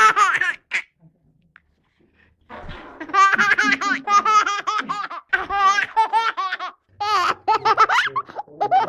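A baby laughing: rapid, high-pitched bursts of laughter. A short burst at the start, a pause of about two seconds, then a long run of laughter broken by brief gasps.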